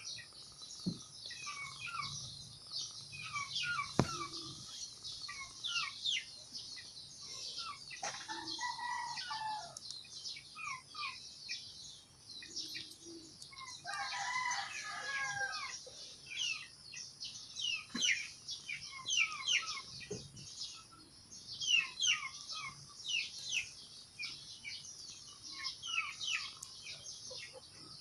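Animal calls: many short, high chirps all through, with two longer, lower calls about eight and fourteen seconds in.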